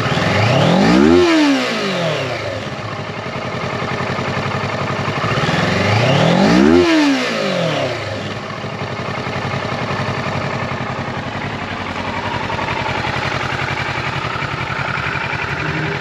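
Kawasaki Ninja 650's parallel-twin engine blipped twice, the pitch rising quickly and falling back each time, about a second in and again about six seconds later, then settling to a steady idle.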